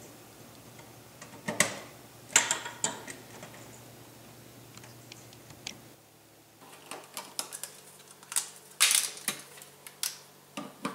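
Scattered clicks and light knocks of hand tools on a wall outlet: a screwdriver working the cover-plate screw and the plastic cover plate coming off. Near the end come a denser run of louder clicks as a screwdriver is set down and another tool picked up.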